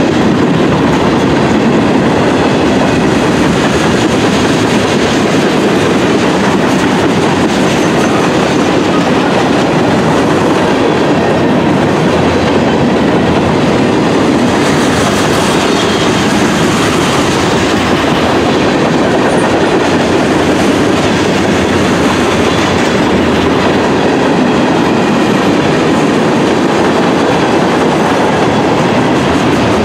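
Freight train cars rolling past close by at speed: a steady, loud rolling noise of steel wheels on the rails.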